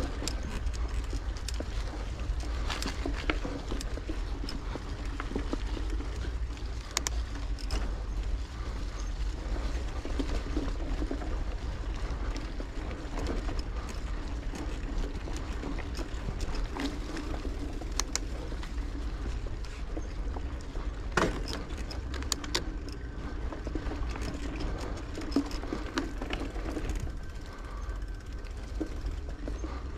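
Bicycle ride heard from the rider's camera: a steady low rumble of wind on the microphone and tyres on the path, with scattered clicks and rattles from the bike, one sharper knock about two-thirds of the way through.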